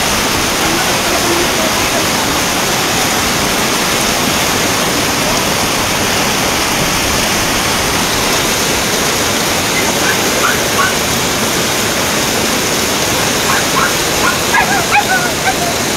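Muddy typhoon floodwater rushing down a street as a fast torrent, a loud, steady rushing noise, with heavy rain falling. A few short, faint calls come through near the end.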